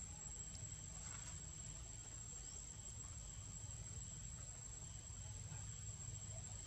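Steady, high-pitched insect drone holding one unbroken tone, with a faint low rumble underneath.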